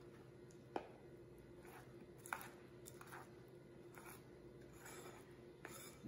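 Faint scraping of a metal spoon stirring thick, cooked pecan praline candy in a glass bowl as it is worked until it starts to thicken, with two sharper clinks of spoon on glass, the first just under a second in and the second a little over two seconds in.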